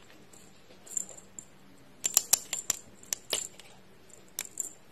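Small metal jingle toy clinking and jangling in quick, irregular taps as a kitten bats at it, the busiest flurry about two seconds in and a couple more taps near the end.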